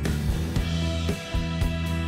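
Background music with a steady beat: held bass and guitar notes over a drum pulse.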